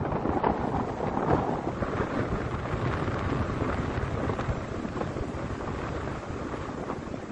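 Strong wind buffeting the microphone: a low rumbling noise that swells and dips in gusts.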